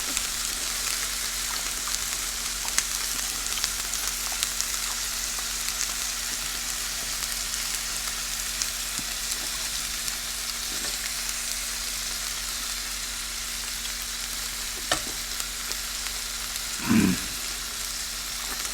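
Tofu frying in hot oil, a steady sizzle with small crackles throughout. A brief low sound near the end.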